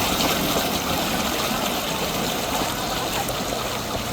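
Steady rush of water flowing in a stream.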